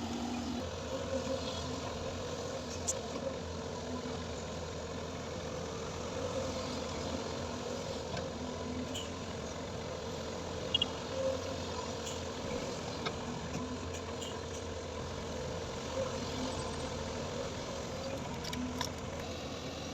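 Heavy-equipment diesel engine running steadily at a low, even speed, with a few faint clicks and rattles.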